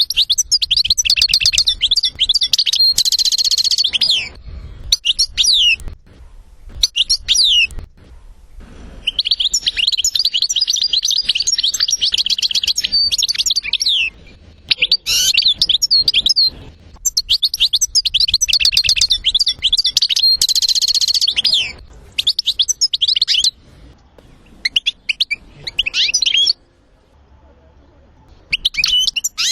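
European goldfinch song: several long phrases of fast high twittering notes and buzzy trills, broken by short pauses.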